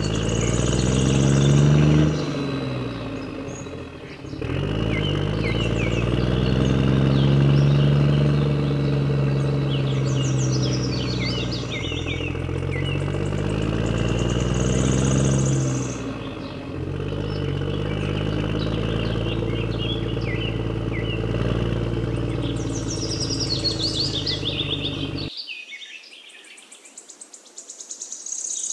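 An engine running, its pitch rising and falling in long swells, with birds chirping throughout. The engine sound cuts off abruptly near the end, leaving only the birdsong.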